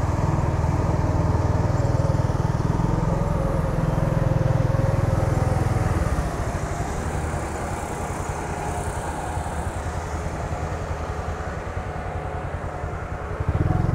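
Engine of a loaded dump truck running as it climbs a hill road, a heavy low rumble that drops away about six seconds in as the truck rounds a bend and pulls off.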